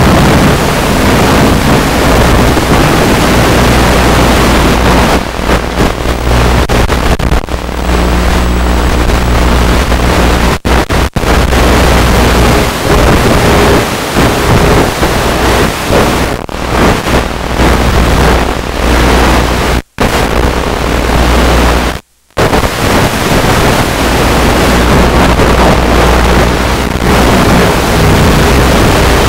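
Loud steady rushing noise with faint humming tones that shift in pitch: wind and motor noise picked up by the onboard FPV camera on a UMX Radian electric glider in flight, heard through the analog video link. The sound cuts out abruptly for a moment several times, twice near the middle and once more briefly later.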